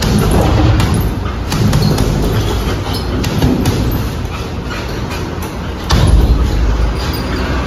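Gloved punches thudding into a hanging heavy punching bag in a steady run of blows, with a louder thump about six seconds in as a kick lands on the bag.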